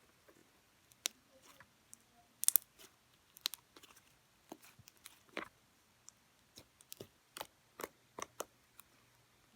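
Slime being squished and worked by hand, giving a string of irregular short clicks and snaps.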